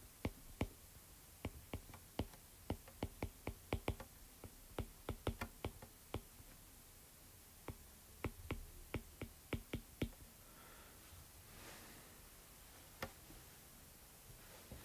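Stylus tapping and clicking on a pen tablet during handwriting: a quick series of light clicks, several a second, that thins out about ten seconds in, with one more click near the end.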